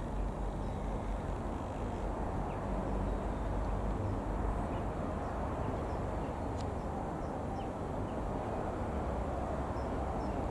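Steady low drone of a distant Royal Air Force Airbus A400M's four turboprop engines, mixed with outdoor background noise, and a few faint bird chirps.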